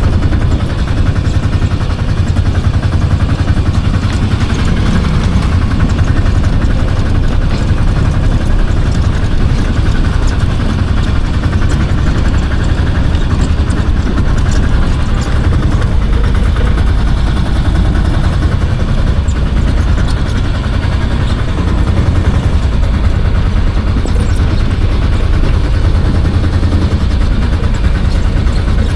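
Engine of a small vehicle running steadily while riding, heard from on board as a loud, even low rumble.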